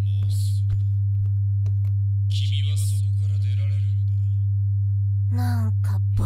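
A loud, steady low hum, a single tone near 100 Hz, with scattered crackling clicks, as from an old videotape playing back. A faint, distorted man's voice on the tape comes through about two seconds in and again briefly near the end.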